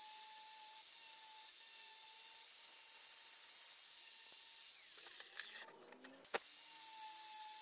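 Angle grinder with a flap disc running with a steady whine while grinding a clamped metal block. About five and a half seconds in, the sound breaks off and a sharp click follows; the whine returns a second later.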